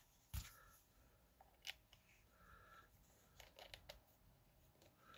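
Faint handling noise of a Sercomm OC821D security camera's metal and plastic parts being fitted together: a sharp knock about half a second in, another near two seconds, and a few quick clicks around three and a half seconds, with light rubbing between.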